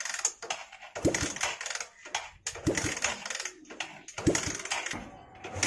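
Honda Shine SP 125 single-cylinder engine being kick-started: about three kicks roughly a second and a half apart, each a clatter of the lever and a brief turn-over. The engine does not fire until it catches at the very end.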